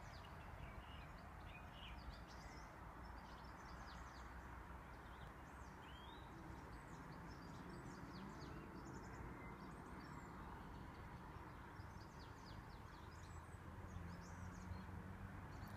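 Small birds chirping repeatedly in short, high, falling notes over a faint, steady low background noise.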